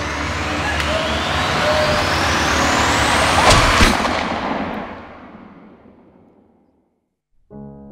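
Thriller sound-design riser: a loud noisy swell with climbing whistle-like sweeps that builds to a sharp hit about three and a half seconds in, then dies away to silence. Soft piano music begins near the end.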